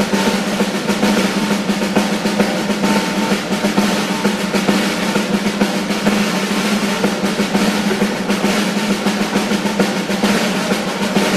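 Snare drum playing a sustained, steady roll in a school concert band, with a low drum tone ringing underneath.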